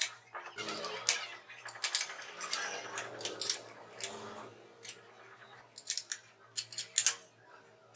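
A run of sharp clicks and knocks with short scraping stretches, from tools and parts being handled and fitted at a workbench.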